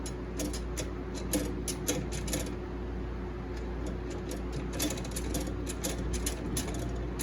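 Molten lead being poured from a melting pot into holes drilled in a wooden lure body, with irregular light clicks and crackles in two clusters, over a steady low hum.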